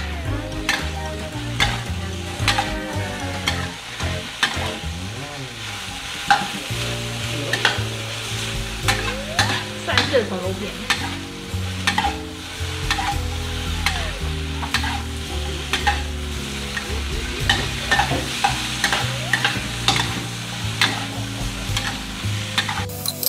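Sliced pork and bell peppers sizzling in a stainless steel wok while a metal spatula stirs and tosses them, scraping and clinking against the pan again and again.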